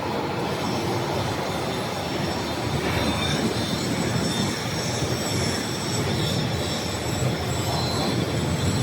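Steady industrial machinery noise in a steel fabrication shop, with thin, high, steady squealing tones over it.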